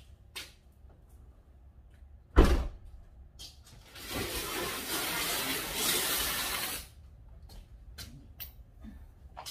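An SUV's rear tailgate shut with a single loud thump, then a heavy cardboard box holding a garden cart dragged across the concrete driveway, scraping steadily for about three seconds.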